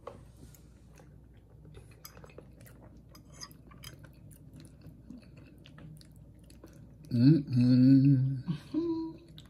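Faint clinks of a fork against a plate with chewing, then, about seven seconds in, a person humming a loud 'mmm' of enjoyment for about two seconds.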